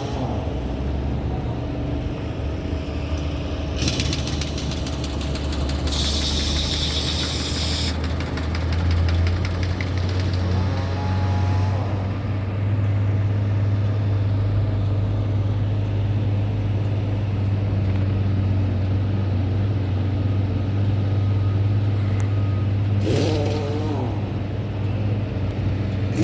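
Engine running steadily, its pitch stepping up about nine seconds in and then holding, with two short bursts of hiss early on.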